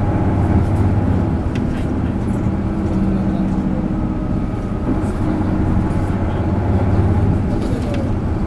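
Isuzu Erga (PJ-LV234L) city bus's diesel engine running hard under load, its steady note changing about two seconds in and easing near the end.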